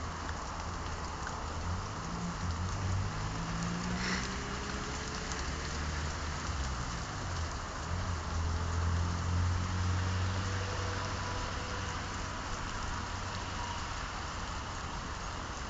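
Steady outdoor hiss with the low rumble of a passing motor vehicle, which swells from about eight seconds in and fades by eleven.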